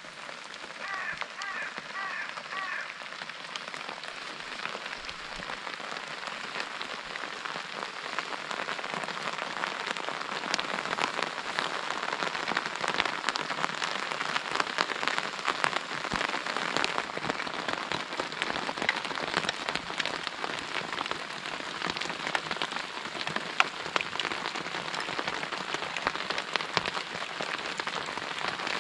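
Steady rain falling, with many sharp taps of drops striking the nylon flysheet of an MSR Elixir 1 tent close by. The rain grows heavier about ten seconds in.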